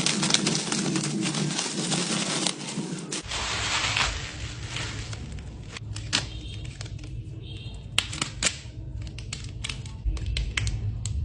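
Card packaging being handled and opened: plastic crinkling and tearing, with many sharp clicks and rustles of handling.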